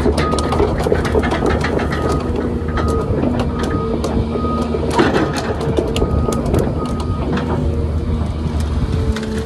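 30-tonne excavator's diesel engine and hydraulics running under load, with a steady low drone and whining tones, while its hydraulic grab pushes into a pile of pine branches that crack and snap many times. A high tone comes and goes over the engine, and the engine sound drops near the end.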